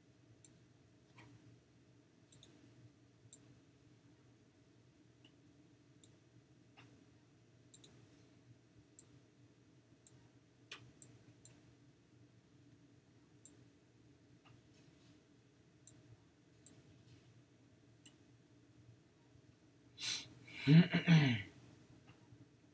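Scattered computer mouse clicks, one every second or so, over a low steady hum. About twenty seconds in comes a loud sigh, a breath out whose pitch falls away.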